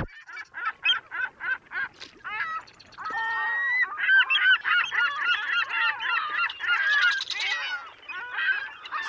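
A flock of birds calling: short repeated calls, spaced at first, then many overlapping from about three seconds in.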